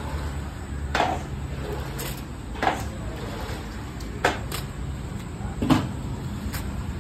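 Stiff dried leaves crackling and knocking against aluminium tins as they are laid over tins of chenna mixture: a handful of sharp, short clicks and knocks, the loudest near the end, over a low steady background rumble.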